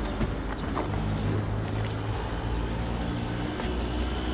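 A steady low engine drone, like a motor vehicle running.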